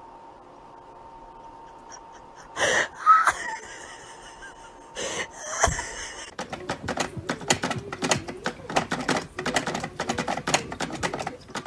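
A cat crunching dry kibble from an automatic feeder's bowl: a rapid, irregular run of sharp crunches starting about six seconds in. Before it, a low room hum and two short loud bursts of noise, just under three and about five seconds in.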